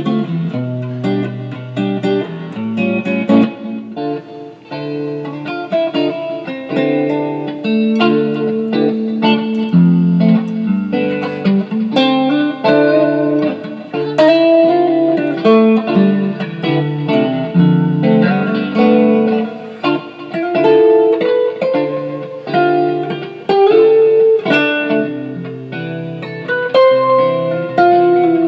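Electric guitar playing, a continuous run of picked notes and chords.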